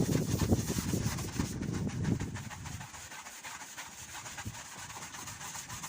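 A brush scrubbing a car headlight lens coated in toothpaste and baking soda, in rapid back-and-forth strokes. It is louder for the first three seconds, then goes on more softly.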